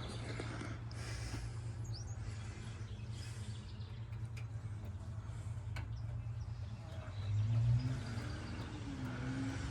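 A steady low hum, with a brief bird chirp about two seconds in and a short swell in the hum near the end.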